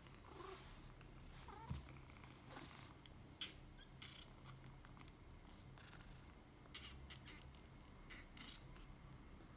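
Young kitten purring faintly, with a few soft clicks and taps mixed in.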